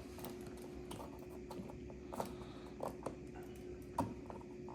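Faint, scattered clicks and taps of small plastic kit parts and screws being handled, a few strokes spread about a second apart, over a faint steady hum.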